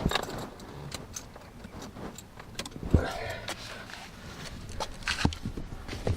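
Scattered clicks and knocks from someone handling things at a car's door, with one sharper knock about three seconds in.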